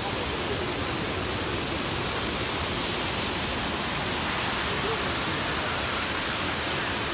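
A steady, even rushing noise with no pitch and no change in level.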